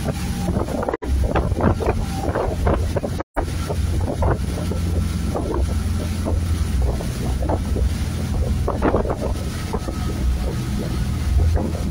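Motor yacht running at speed: a steady low drone from its engines, with wind buffeting the microphone and the rush of the churning wake. The sound cuts out briefly twice, about one and three seconds in.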